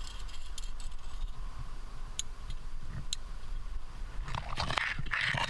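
A climber moving on rock with a rack of trad gear: a few small sharp clicks from the hardware, then a rough scraping rustle near the end, over a steady low rumble.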